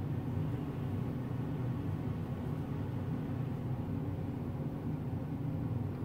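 Steady low machine hum with no sudden sounds.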